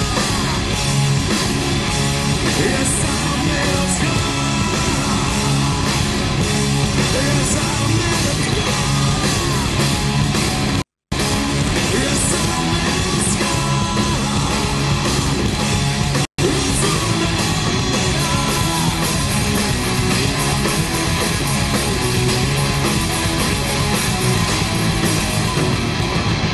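Loud live hard-rock band playing: distorted electric guitars, bass and drums, with a singer's voice on top. The sound cuts out completely for a moment about eleven seconds in, and again for an instant about sixteen seconds in.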